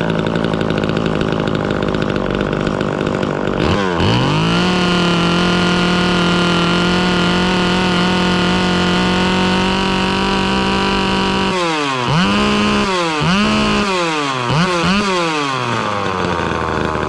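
Two-stroke chainsaw running at high speed while its carburettor mixture screw is turned. About four seconds in, the revs sag and climb to a steady high, clear note, the sign of the mixture going lean. Near the end the revs drop and climb back about six times.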